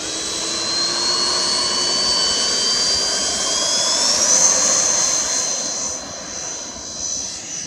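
Twin electric ducted fans of a Freewing F-14 Tomcat RC jet whining as they are throttled up for the takeoff roll. The high whine climbs steadily in pitch, jumps higher and is loudest about four seconds in, then fades somewhat after about six seconds.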